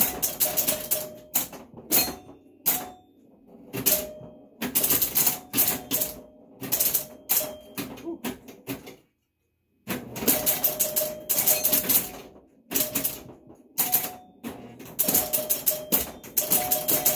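Williams Super Flite electromechanical pinball machine in play: rapid clusters of clattering clicks from its relays, bumpers and stepping score reels, with short ringing tones among them and brief pauses between clusters. The sound drops out completely for about a second about nine seconds in.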